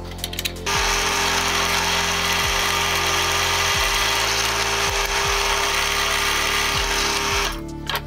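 Drill press running with its bit cutting into a metal part held in a vise: a loud steady drilling noise with a constant motor tone, starting about a second in and stopping near the end, over background music.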